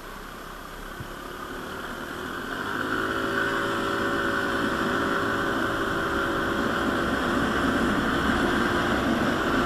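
Yamaha automatic scooter's engine pulling under acceleration with wind and road noise. It grows louder over the first three seconds, then holds an even pitch while road speed keeps climbing.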